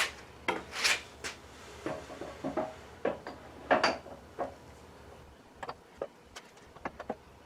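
Metal lathe parts knocking and clinking as a part is worked onto the lathe: a dozen or so scattered knocks, a few of them ringing briefly. The part won't seat because a gear on it is too tight to turn.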